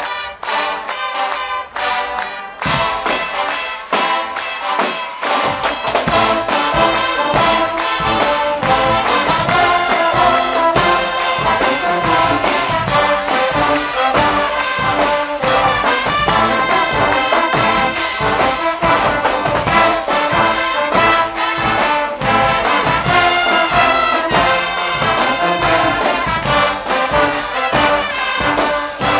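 Guggenmusik band playing live: loud trumpets, trombones and sousaphones over drums and cymbals with a steady beat. After a sparse couple of seconds of mostly percussion, the full brass comes in, and the low bass joins a few seconds later.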